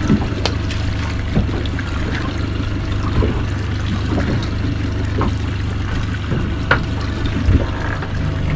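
Water trickling and splashing against a fibreglass boat hull, over a steady low rumble, with scattered small knocks from handling gear on deck.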